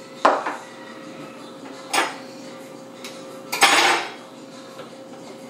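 Metal measuring spoons clinking against bowls and dishes: three short clatters, the third a longer rattle about halfway through, over a faint steady hum.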